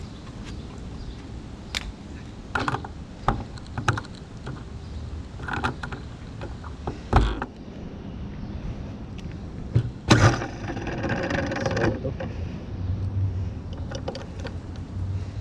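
Sharp metallic clicks and knocks as a small model-airplane engine and its fittings are handled and adjusted by hand, with a dense rattling burst about ten seconds in.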